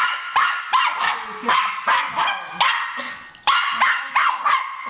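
Cairn terrier barking in a rapid run of short, sharp barks, about two or three a second, with a brief pause about three seconds in.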